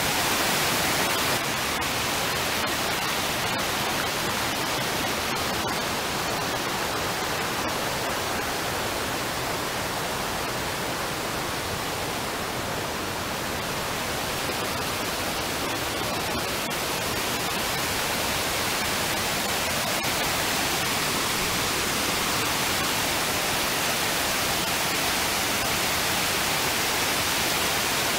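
Waterfalls and rapids of the Una river: water cascading over rock ledges in a steady, even rush.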